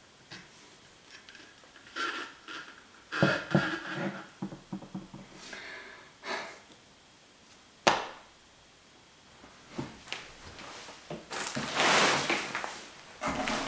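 Handling noises as a large telephoto lens is laid down on a table: a cluster of knocks and thuds about three to four seconds in, and a single sharp click about eight seconds in. Near the end comes a loud, noisy rustle close to the microphone.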